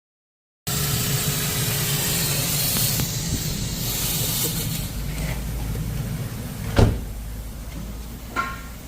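Steady mechanical hum with hiss, slowly fading, broken by a sharp knock about two-thirds of the way through and a lighter clunk near the end.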